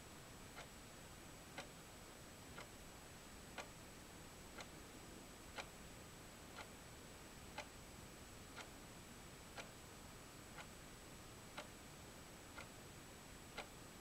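Faint, steady ticking, one tick a second, the ticks alternately louder and softer.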